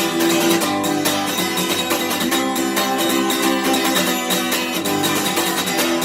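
Guitar strummed in a steady, driving rhythm, an instrumental passage of a rock song played without vocals.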